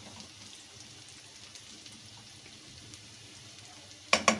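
Chopped garlic sizzling gently in a small amount of oil in a non-stick wok, a steady faint crackle. Near the end come a few quick sharp knocks of the metal spoon against the pan.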